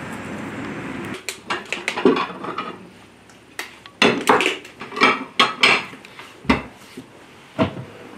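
Dishes and cutlery clattering in a kitchen: a string of sharp clinks and knocks, thickest about four to six seconds in. It follows a steady outdoor hiss that cuts off about a second in.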